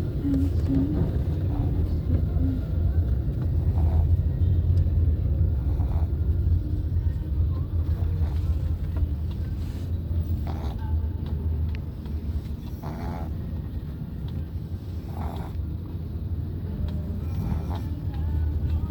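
A dog snoring: a low, uneven rumbling that swells and fades. It is louder for the first two-thirds and softer after about twelve seconds.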